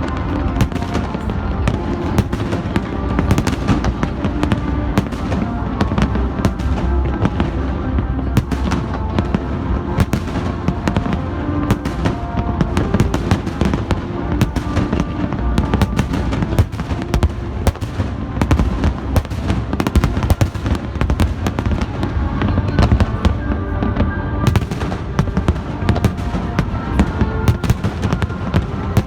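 Fireworks display: many shells bursting and crackling in quick, dense succession, over music.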